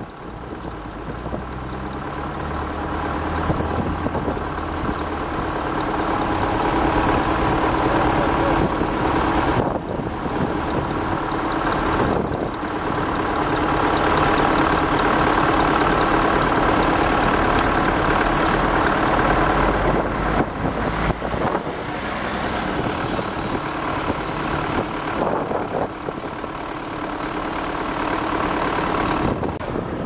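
Heavy truck engine running close by, swelling over the first few seconds and then holding steady. A faint rising whine comes a little past two-thirds of the way through.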